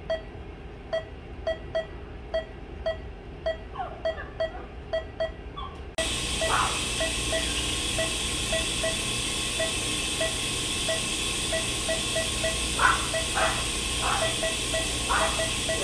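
Veterinary patient monitor in an ICU cage beeping short, mid-pitched tones about two to three times a second. A steady hiss comes in about six seconds in.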